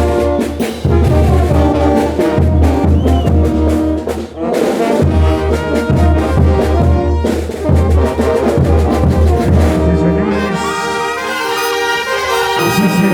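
Bolivian brass band playing carnival dance music: trumpets and trombones over a heavy bass drum and cymbals. Near the end the drums drop out for about two seconds while the brass holds long notes.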